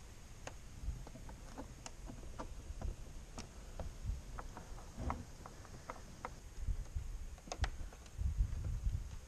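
Scattered light clicks and taps of a wire and plastic trim being handled as the wire is fed along the edge of an engine bay. There are a few dull low thumps, most of them near the end.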